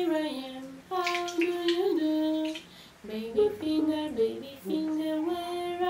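A high voice singing a slow melody in held notes, without clear words.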